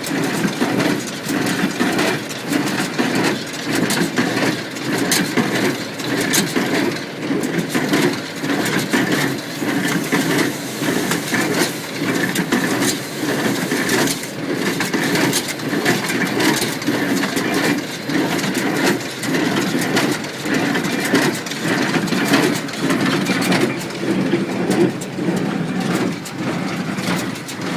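International Harvester 47 square baler running under load, its plunger crushing and packing hay in a steady rhythm of knocks, with the tractor engine driving it underneath.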